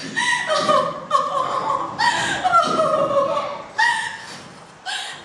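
A performer's high, exaggerated character voice in short, laugh-like syllables that slide down in pitch, several times over.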